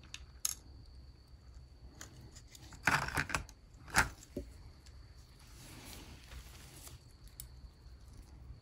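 Small plastic clicks and clatter of a Porsche 944 speedometer's odometer assembly being handled by hand: a short rattle about three seconds in, one sharp click at four seconds, then faint rubbing.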